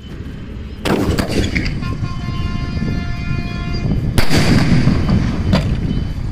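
Explosive blasts in the air: a loud bang about a second in, a louder one about three seconds later, and a smaller crack soon after. Between the first two bangs a steady, horn-like tone sounds.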